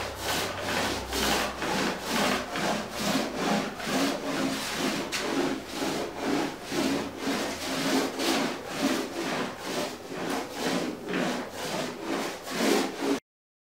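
Small foam roller rolled back and forth over wet epoxy on a fiberglassed wooden kayak hull: even rubbing strokes, about two a second, that cut off suddenly near the end.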